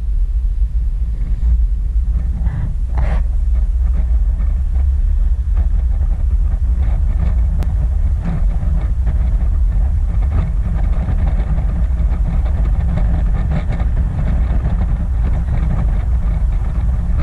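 Steady, loud low rumble of wind and road noise in a moving vehicle.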